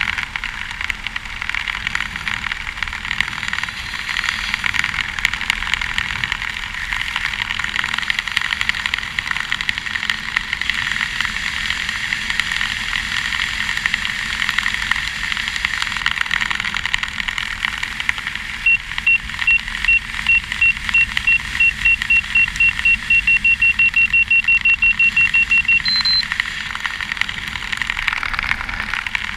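Steady wind rushing over a helmet camera's microphone during a parachute canopy descent. About two-thirds of the way in, a skydiver's audible altimeter sounds a string of short high beeps that speed up over about seven seconds, then one brief higher tone.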